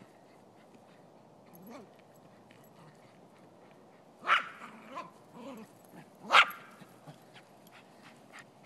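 Silky Terrier barking twice, sharply, about two seconds apart, with a few fainter sounds between.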